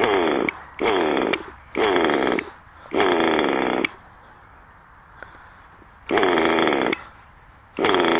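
Nitro RC car's small two-stroke glow engine revving hard in short throttle bursts, six blips of a high, buzzing whine whose pitch swings up and down, with a pause of about two seconds in the middle.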